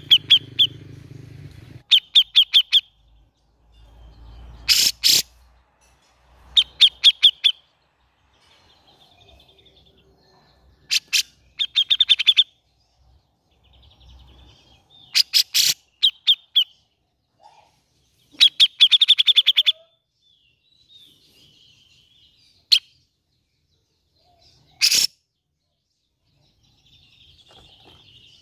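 Cucak jenggot (grey-cheeked bulbul) calling: short bursts of rapid, harsh repeated notes, a burst every few seconds with quiet gaps between.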